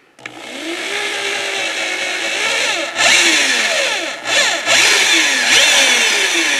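Repaired corded electric drill boring a hole into a wooden board: the motor spins up, then runs with its pitch repeatedly sagging and recovering as the bit bites into the wood. It gets louder about three seconds in and dips briefly about a second later.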